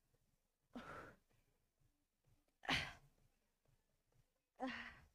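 A woman's heavy exhalations while holding a plank at the end of a hard interval workout: three breaths out, about two seconds apart, the last with a little voice in it.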